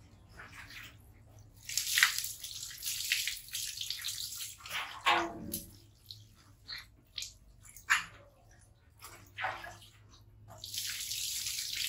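Water poured from a plastic scoop over a wet baby monkey, splashing and pattering onto a tiled floor. It comes in bursts, one about two seconds in and another starting near the end, with scattered drips and small splashes between.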